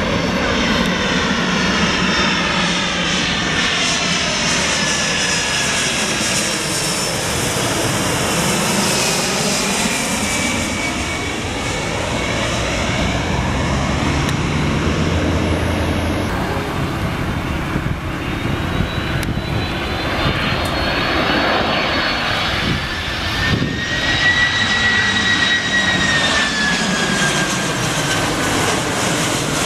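Boeing 767-300 twin-engine jet airliners on final approach, passing low overhead with steady engine noise. The first one's whine falls in pitch as it goes over. After an abrupt cut about halfway through, a second one's whine rises as it approaches, then falls near the end.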